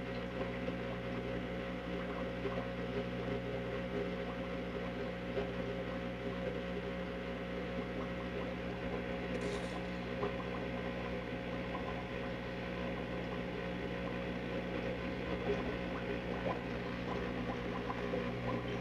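Steady background hum made of several constant tones over a faint crackle, with one brief high hiss about halfway through.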